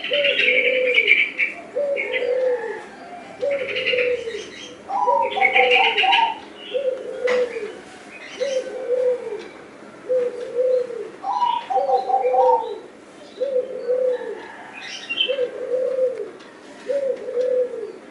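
Zebra dove (perkutut bangkok) cooing in a regular series, about one short coo a second, with a few higher notes now and then. Bursts of higher chirping come in between.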